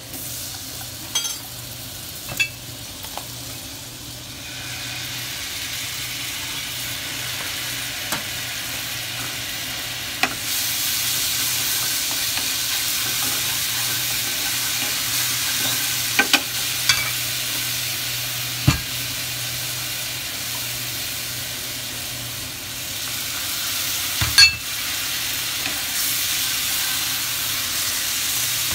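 Butter and seasoning sizzling and frying in a nonstick frying pan over a gas burner, with a spatula stirring and clacking against the pan now and then. The sizzle gets louder about four seconds in and again about ten seconds in.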